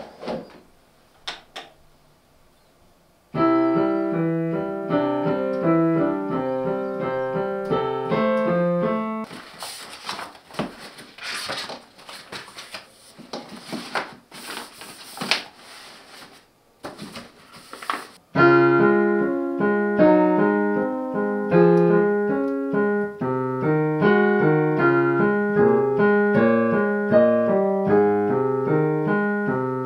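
A Kawai digital piano playing a simple beginner's piece from a children's songbook. About a third of the way in the playing stops while the book's pages rustle and are flipped for several seconds, and the piano starts again a little past halfway.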